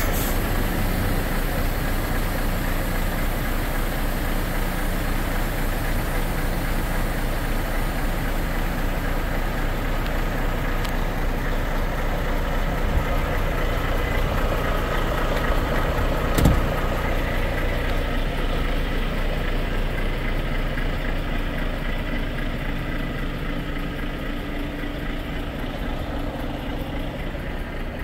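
Truck's diesel engine idling steadily, with one sharp click a little past halfway; the idle grows slightly fainter toward the end.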